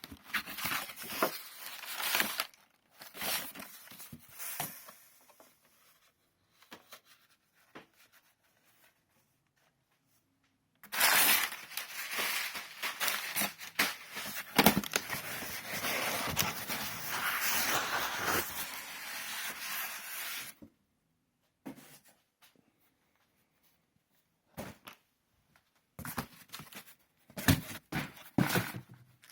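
Shipping box being unpacked: packing material and packaging handled in bouts of noisy rustling, short handling sounds at first, then a long unbroken stretch of about ten seconds in the middle, and more short bursts near the end.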